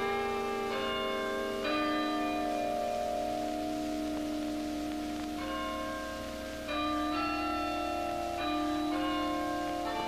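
Tower chime bells playing a slow tune, each group of notes ringing on and overlapping the next. Fresh notes are struck about two seconds in and again a little before three-quarters of the way through.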